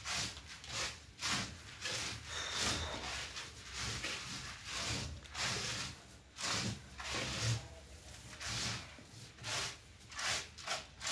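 Hands rubbing and turning paddy rice seed on a sack, a repeated rustling swish about once or twice a second, as the grain is mixed with a liquid bio-fertilizer for seed treatment.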